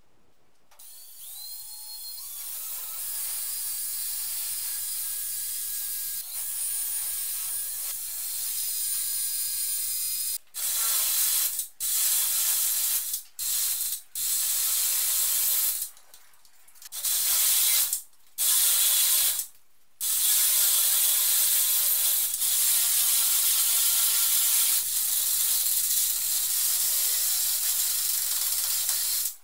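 Cordless drill boring holes into a wall. The motor winds up about a second in and runs steadily, then comes in a string of short bursts of about a second each with brief stops, and finishes with a long steady run.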